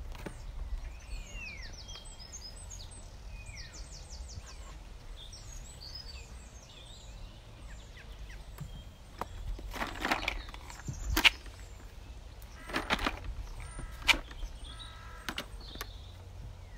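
Small birds chirping and twittering over a steady low wind rumble, with a few short rustles and sharp knocks about ten to fourteen seconds in.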